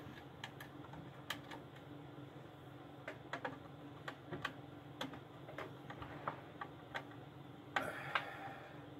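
Irregular light clicks and ticks of a screwdriver turning the wire terminal screws on a solar charge controller, snugging them down, over a low steady hum. A brief louder cluster of clicks and rustle comes near the end.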